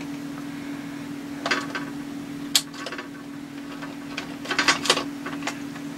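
Steady hum of a small machine tool's motor left running, with a few sharp metallic clicks and knocks from tools being handled, a cluster of them near the end.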